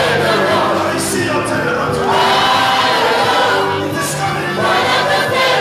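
A large congregation singing a praise song together, many voices at once, loud and continuous.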